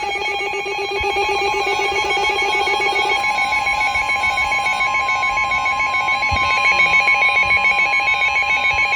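Emergency alert attention tone: a steady electronic alarm with a fast pulsing warble. A second steady pitch joins about three seconds in. It signals that a severe thunderstorm warning is about to be read.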